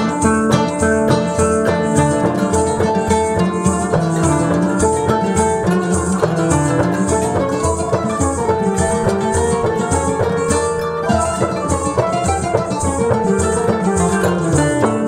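Instrumental background music: plucked strings over a steady percussion beat.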